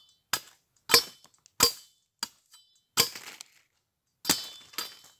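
Machete blade chopping and shaving a plank of jonote wood: about seven sharp strikes at irregular spacing, some with a brief metallic ring.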